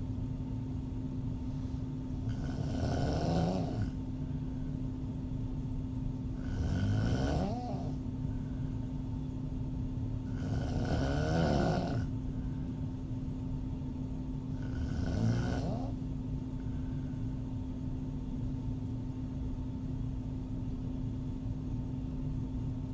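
A woman snoring with her mouth open: four snores about four seconds apart, each lasting a second or so, then several seconds without one near the end. A steady hum runs underneath.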